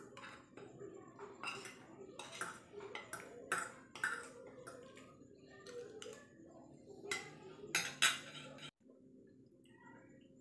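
Metal spoon and fork clinking and scraping against ceramic plates during a meal, with mouth sounds of chewing. There are many separate sharp clinks, the loudest two about 7 and 8 seconds in.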